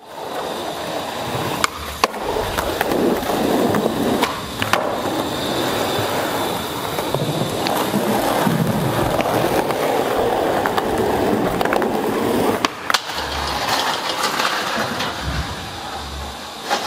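Skateboard wheels rolling over rough concrete and paving in a steady rumbling roll, broken by a few sharp clacks of the board.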